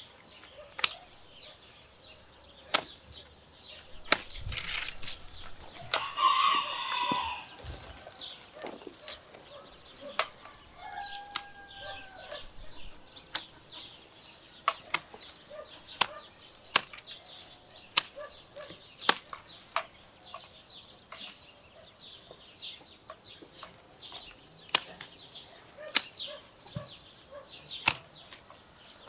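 Hand pruning shears snipping through flat peach branches, sharp clicks about once a second with branches rustling. A chicken calls briefly about six seconds in.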